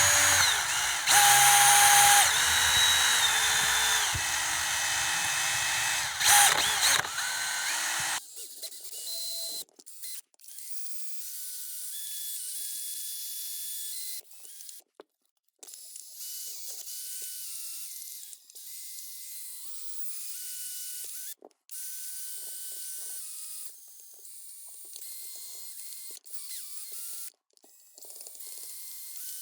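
Lamello magnetic tool's motor running against a magnetic padlock, loud at first. After about eight seconds it turns into quieter, higher whirring in short sped-up stretches, cut off abruptly several times.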